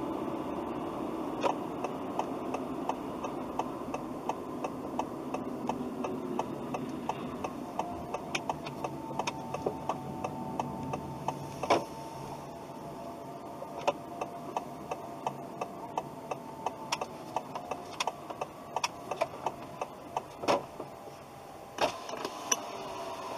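Steady engine and road noise inside a moving car. From about eight seconds in until near the end a turn-signal indicator ticks, and a few sharper knocks stand out.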